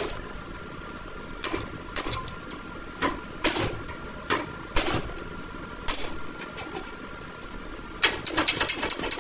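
Scattered sharp metallic clicks and knocks of tools and parts being handled, one every half second or so, then a quick run of clinks near the end, over a faint steady hum.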